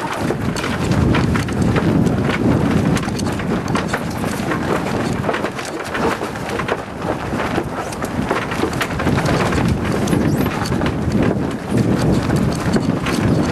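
Wind buffeting the microphone aboard a sailboat, with a dense run of irregular knocks, rattles and flapping from the sail and deck gear.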